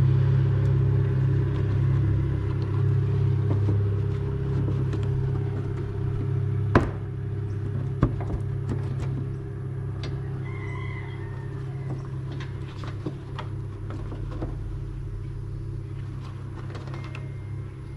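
Steady low hum with two sharp clicks about seven and eight seconds in, as plastic trunk trim is pried and pulled off its push clips.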